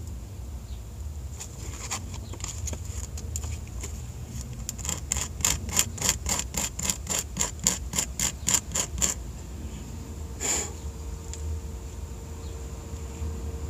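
Metal contacts of a Jeep Cherokee neutral safety switch rubbed back and forth on sandpaper to clean off dirt and corrosion. A few light scrapes, then a run of quick even strokes, about three or four a second, for around four seconds, and one last stroke.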